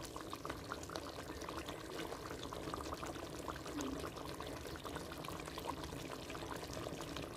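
Chicken karahi gravy simmering in a clay pot over a gas burner: a quiet, steady bubbling with many small pops and crackles.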